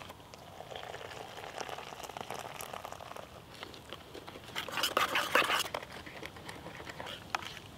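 Hot water poured from a plastic cup into a camp mug of cocoa powder, followed by a metal spoon stirring briskly, clinking and scraping against the mug's sides in a loud burst about five seconds in, with lighter clinks after.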